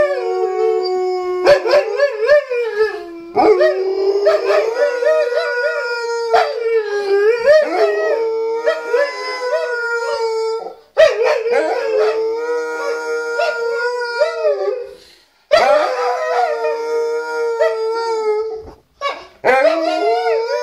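Alaskan malamute howling while lying on its back, joined by a second husky-type dog: long, wavering howls with short pauses between them, the two voices overlapping at times.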